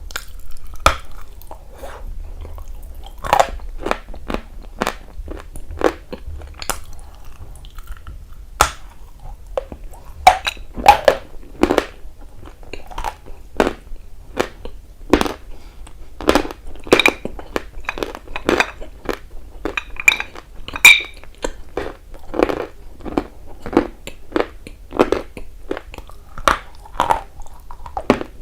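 A person biting and chewing something dry and hard, close to the microphone: a long series of sharp, irregular crunches, about one to two a second.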